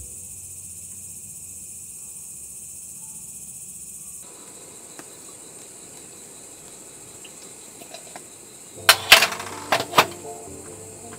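Steady high-pitched insect chirring, with a few sharp knocks or clatters about nine to ten seconds in.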